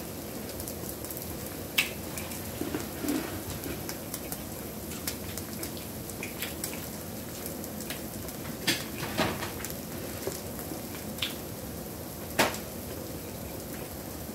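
Red king crab legs being picked apart by hand: scattered small cracks and clicks of shell over a steady background hiss, the sharpest crack about twelve seconds in.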